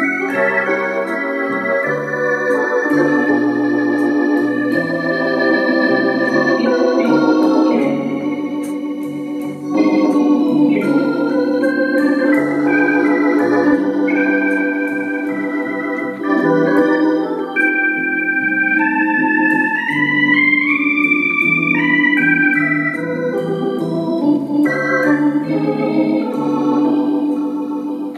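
Bugari Evo chromatic button accordion playing with its theatre organ sound: a melody over held chords and a bass line, with a rising run of notes about two-thirds of the way through.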